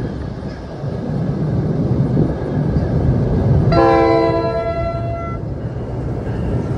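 A train running with a steady low rumble that swells toward the middle, and a short blast of its multi-chime air horn a little under four seconds in, most notes stopping within a second and a couple lingering a moment longer.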